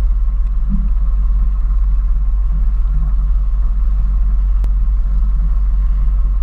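A RIB's engine running steadily as the boat travels across the sea, heard as a constant low rumble and drone. There is one brief click about two-thirds of the way through.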